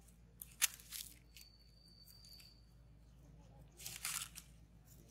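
Dry leaves crackling and rustling in short bursts as a young macaque paws at the leaf litter, the loudest cluster about four seconds in, with a couple of sharp clicks near the start.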